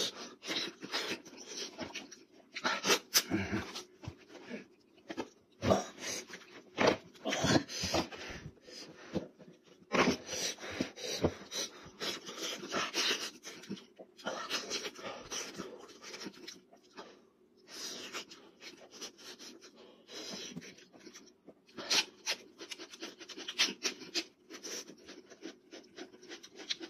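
Close-up eating sounds of a person eating cooked goat head by hand: wet chewing, lip smacking and sucking as meat is worked off the bone, in irregular bursts with breaths between.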